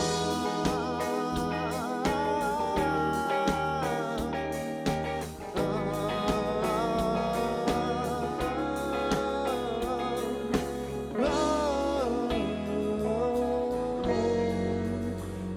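Live band playing an instrumental passage after the chorus: a lead melody that bends in pitch over bass and a steady drum beat.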